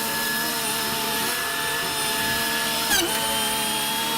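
A machine running with a steady whine, its pitch dipping briefly about three seconds in.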